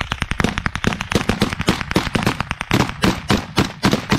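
Close-range rifle fire in a firefight: a dense run of rapid shots from several rifles overlapping, several a second, with the loudest, evenly spaced shots in the second half from an AR-style rifle right at the microphone.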